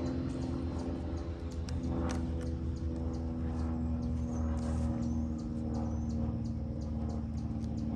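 Steady low hum of honeybees around the opened hive, with a few sharp clicks and scrapes as the plastic queen excluder is pried up. Short high bird chirps come in a few times.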